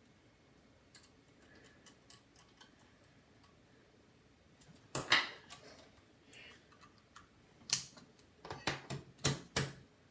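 Small clicks and clacks of a laptop hard drive and its metal mounting bracket being handled and seated in the drive bay. Faint ticks at first, then a few sharper knocks about halfway through and a quick run of clacks near the end.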